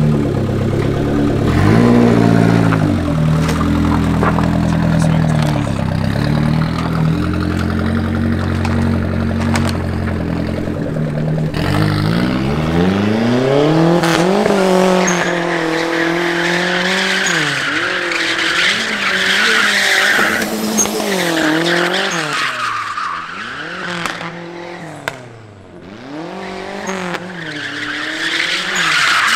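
A car engine holds a steady low drone for about twelve seconds. Then it revs up and down over and over, about every two seconds, with tyres squealing as the car drifts.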